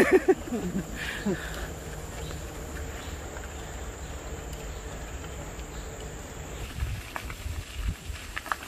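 A steady high-pitched insect drone that stops about two seconds before the end, over a low rumble of wind on the microphone that grows gusty near the end.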